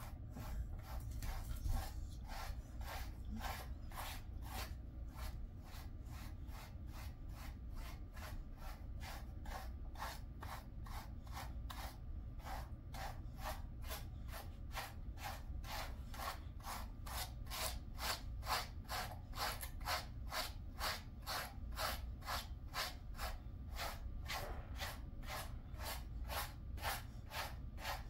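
A handheld pet brush raking through a Jindo dog's thick coat in quick, regular strokes, about two a second, each one a short rasp.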